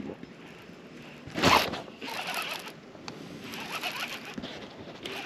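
A short loud rustle about a second and a half in, then a baitcasting reel being wound in, in short zipping bursts.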